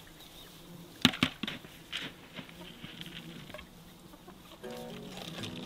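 Chickens clucking, with a few short, sharp clucks about a second in and again near two seconds; background music comes in near the end.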